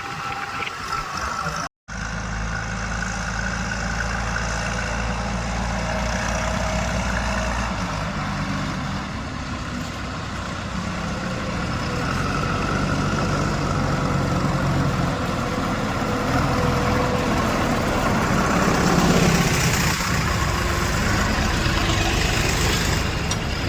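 Heavy diesel engine running steadily, with a brief cut in the audio about two seconds in; it gets somewhat louder in the second half.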